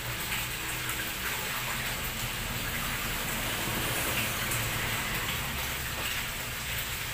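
A steady hiss like falling rain, with a low hum underneath.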